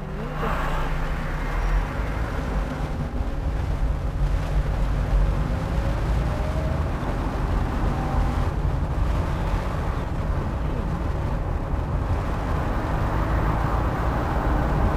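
Steady low rumble of engine and road noise inside the cabin of a 1994 Fiat Elba as it drives along, with a faint engine whine that rises and falls slightly in pitch.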